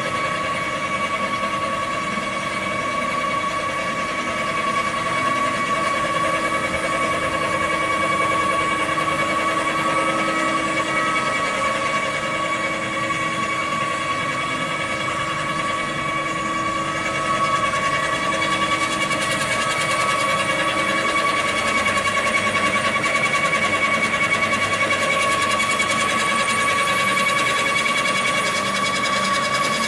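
Industrial machinery running steadily in a machine shop: an even mechanical hum with a high, constant whine, getting a little louder partway through.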